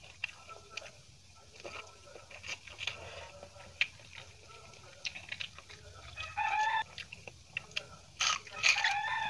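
Close-up eating sounds: scattered clicks and smacks of fingers mixing rice and of chewing. A chicken calls in the background twice, briefly about six seconds in and again, louder, near the end.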